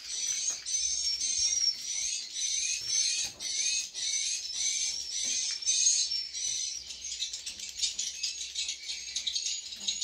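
Edible-nest swiftlet calls: a steady run of high, rising chirps repeating about twice a second, turning into rapid clicking in the last few seconds.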